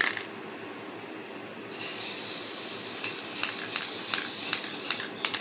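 Aerosol can of Rust-Oleum 2X Matte Clear spraying a clear coat: a steady hiss that starts about two seconds in and cuts off near the end, followed by a couple of sharp clicks.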